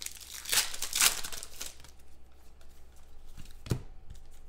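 Foil trading-card pack being torn open and crinkled by hand, in several crackly bursts that are loudest in the first second or so, then quieter rustling, with a soft knock near the end.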